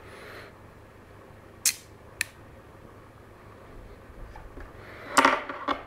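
Small metal magnet pen parts being handled on a table: two sharp clicks about half a second apart, then a quick cluster of clicks and clatter near the end, over a faint steady low hum.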